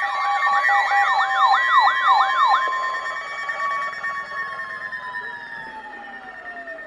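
Siren yelping in quick falling sweeps, about three a second, then settling on one tone that slowly sinks in pitch and fades as it winds down.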